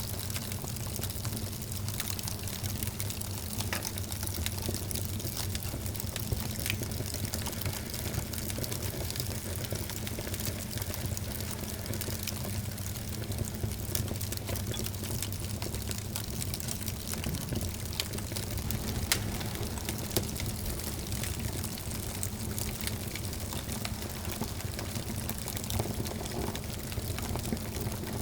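Wood fire in a fireplace, crackling and hissing steadily with scattered sharp pops and one louder pop about two-thirds of the way through.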